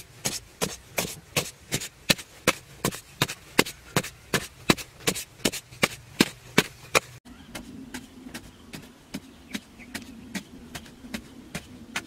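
A digging tool chopping into hard, dry earth and breaking up clods in a fast, even rhythm of about three to four strikes a second. About seven seconds in, the sound cuts, and the strikes go on softer with a low steady hum beneath them.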